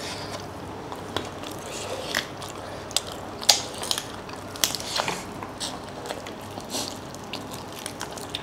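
Two people chewing and biting with their mouths close to clip-on microphones while eating chicken curry and rice by hand: irregular short wet clicks and smacks of chewing, a few louder ones spaced a second or so apart.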